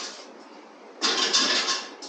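A click, then a scraping rasp lasting just under a second, about a second in: a metal exhaust tip being slid onto the exhaust pipe.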